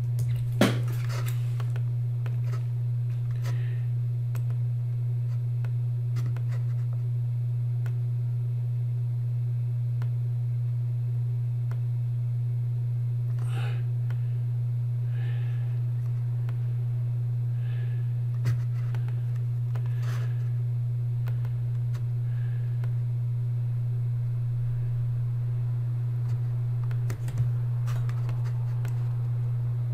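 A steady low hum runs throughout, with a few faint, widely spaced clicks of a computer mouse.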